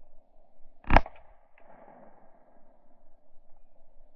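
A single 10mm semi-automatic pistol shot about a second in, with a short ring-out after it, over a faint steady hiss.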